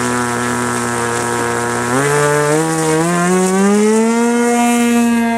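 Small model aircraft engine running at a steady speed, then revved up about two seconds in, its pitch climbing in steps over a couple of seconds before holding a high, steady note.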